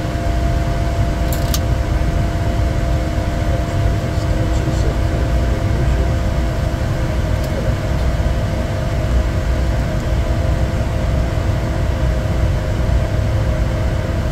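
Steady flight-deck noise of a Bombardier Challenger 350 business jet on approach: rushing airflow and a low turbofan drone, with a few faint steady hums over it.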